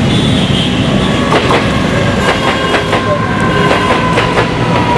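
Central Railway suburban EMU local train running past, a loud steady rumble with wheels clicking over rail joints from about a second in, and a thin steady whine above it.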